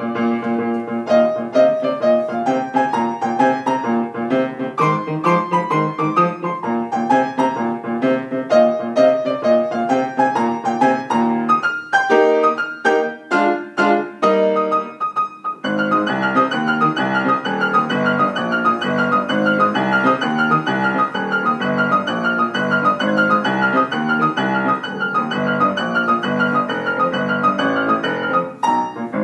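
Upright piano played at a lively pace, a boogie piece. Around halfway through it plays separate chords with short gaps, then goes into a denser, busier passage with quickly repeated high notes.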